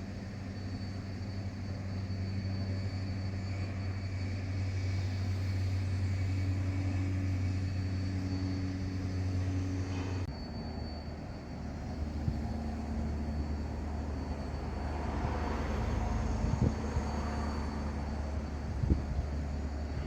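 Steady low drone of a passing container ship's engine, with a hum to it. Its tone changes abruptly about halfway through.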